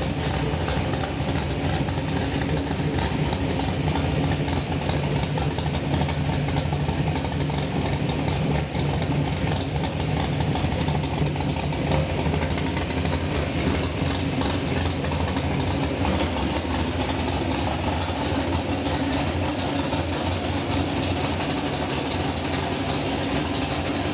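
A 427 cubic-inch small-block Chevy V8 with a mechanical roller cam and Holley carburettor running on an engine run stand at a steady idle, with no revving.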